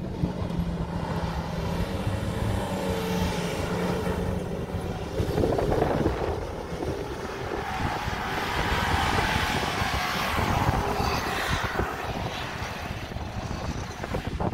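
Nissan Pathfinder R50 engine revving hard while its tyres spin and churn loose desert sand during donuts. The noise swells and fades twice as the SUV circles past.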